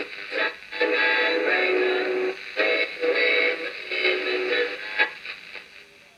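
Music with singing playing from the small speaker of a freshly repaired early-1970s Hong Kong transistor clock radio picking up an AM signal; it sounds thin, with no bass. It comes in just after the start and fades out near the end.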